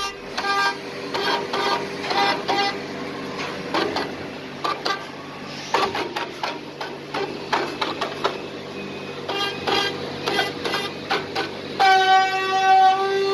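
CNC router trimming excess plastic from a vacuum-formed part: a pitched cutting whine with overtones that comes and goes in bursts, with sharp clicks and clatter. The whine steadies and grows louder near the end.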